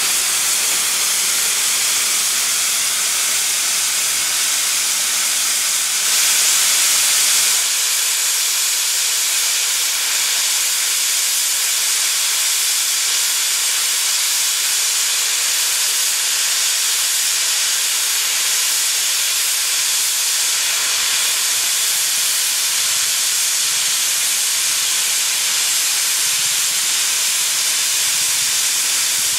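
Loud, steady hiss of steam from Isle of Man Railway No. 8 Fenella, a Beyer Peacock steam tank locomotive, standing with its safety valves blowing off, the sign of a boiler at full pressure. The hiss swells briefly about six seconds in.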